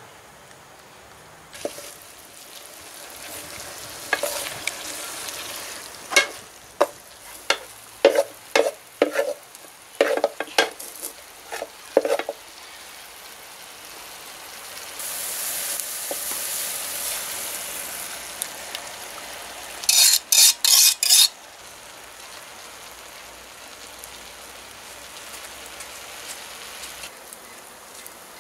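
Cabbage stir-fry sizzling in a steel pan while a metal spoon stirs it, scraping and clanking against the pan in runs of sharp strokes. Near the middle there is a rapid cluster of about five quick taps on the pan.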